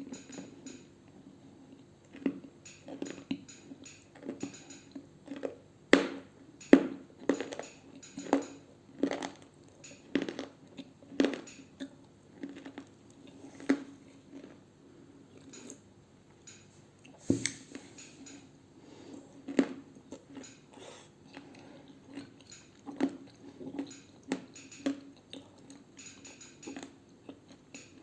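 Edible clay being bitten and chewed close to the microphone: irregular dry crunches, roughly one a second.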